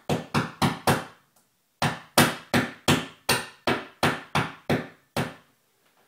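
A small metal saucepan used as a hammer, knocking picture-hook nails into a wall. There are about fifteen sharp knocks in two runs of roughly three a second, with a short pause after the first second, and they stop a little after five seconds in.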